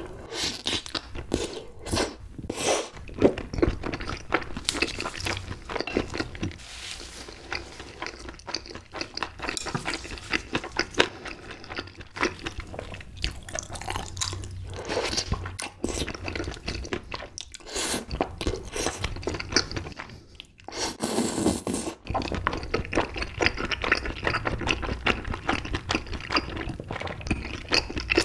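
Close-miked chewing of tteokbokki, chewy rice cakes in thick spicy sauce, with a steady run of small wet clicks and mouth sounds.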